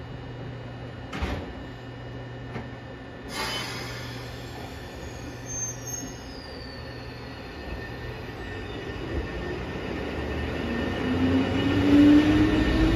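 Eizan Electric Railway Deo 730 'Hiei' electric railcar pulling away from the platform. A steady low hum at standstill, a click and a short hiss a few seconds in, then the motor whine rising in pitch and the running sound growing louder as it accelerates past.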